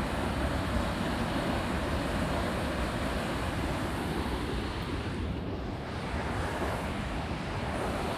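Steady rushing roar of a waterfall, a dense even wash of falling water with wind buffeting the microphone.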